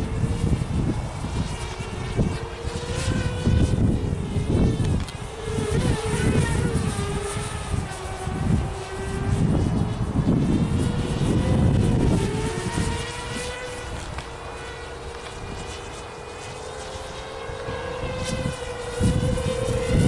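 Walkera F210 racing quadcopter flying overhead: the steady whine of its motors and propellers, wavering a little in pitch as the throttle changes and rising near the end. Gusts of wind buffet the microphone.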